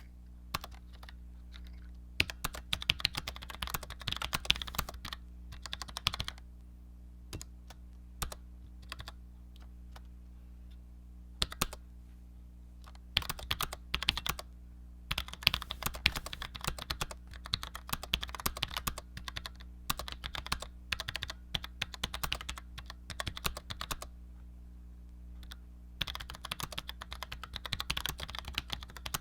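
Cherry G84-4100 low-profile keyboard with Cherry ML switches being typed on: runs of quick key clicks with short pauses between bursts.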